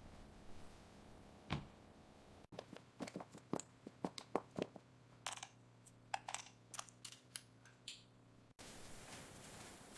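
A run of faint, irregular clicks and light taps lasting about six seconds, starting and stopping abruptly.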